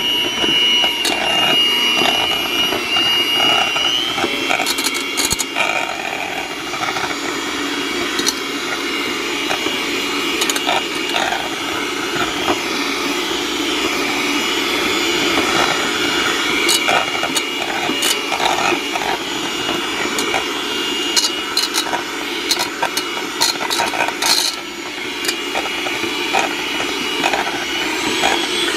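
Electric hand mixer running steadily, its beaters shredding cooked chicken thighs in a pressure cooker's inner pot. A steady motor whine, with frequent irregular clicks and knocks of the beaters against the pot.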